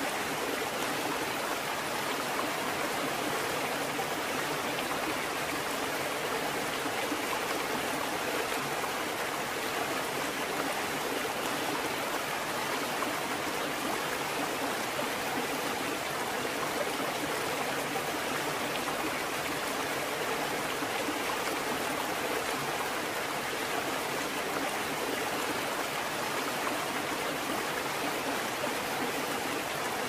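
Steady rushing of flowing water, like a stream or waterfall, an even unbroken wash of sound.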